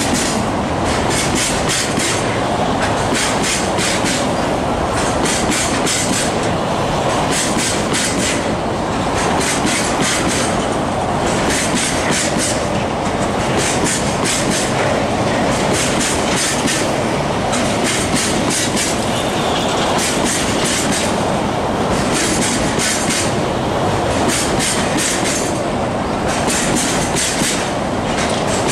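Freight train of tank wagons rolling past, their steel wheels clacking over the rail joints in repeated groups about once a second over a steady rumble.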